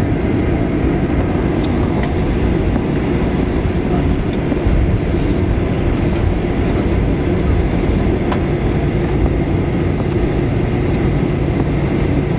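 Steady low rumble of cabin noise inside a Boeing 737-900ER on the ground after landing, with a few faint clicks.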